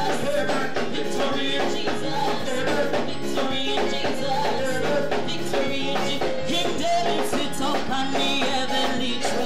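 A gospel song sung by two singers into microphones over band music with a steady beat.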